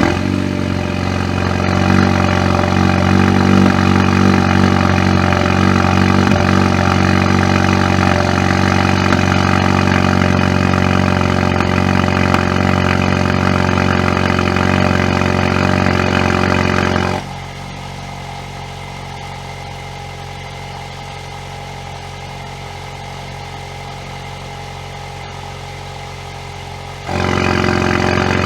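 Alfa Romeo Giulia Veloce's 2.0-litre turbocharged four-cylinder idling steadily through a Guerrilla Bypass exhaust cutout, just after starting. About 17 seconds in the sound suddenly drops much quieter as the bypass valve shuts and the exhaust goes through the stock rear muffler, and about ten seconds later it jumps back to the louder open-bypass sound.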